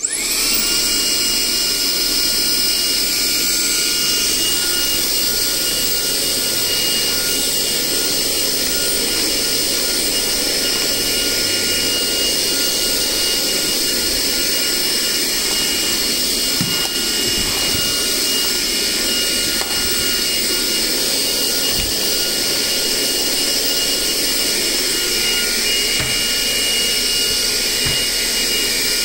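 Makita CL003G 40V max cordless cyclone stick vacuum switched on, its motor spinning up within a fraction of a second to a steady high whine with a constant whistle as it vacuums through the floor nozzle. A few faint knocks come through in the second half.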